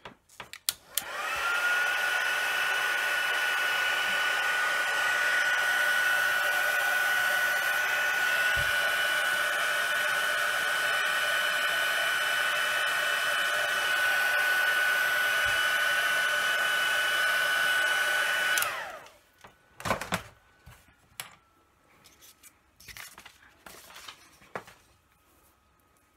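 Handheld craft heat gun switched on about a second in, its fan spinning up to a steady high whine over a rush of blowing air. It runs for about 17 seconds, drying ink on a card, then switches off, the whine falling away as it winds down. Faint light handling clicks follow.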